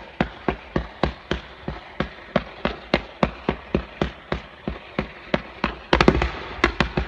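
A ground-level fireworks cake firing a fan of comets: an even, rapid run of launch shots, about four a second, that starts suddenly. Near the end the shots come louder and closer together as more tubes fire at once.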